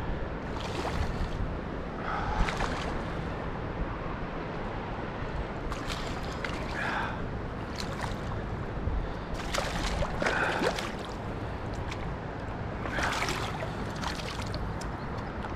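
Creek water running steadily, broken every few seconds by short splashes as a hooked smallmouth bass thrashes at the surface during the fight.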